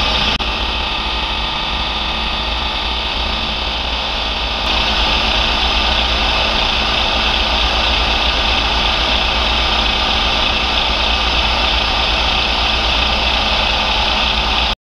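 Variable-speed Bridgeport Series 1 knee milling machine running, its spindle turning an edge finder: a steady motor and spindle whir. It steps up slightly in level about five seconds in and cuts off abruptly just before the end.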